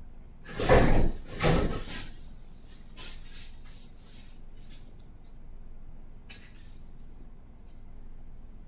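Rubbing and rustling from hands handling things: two louder strokes about a second in, then a few softer ones.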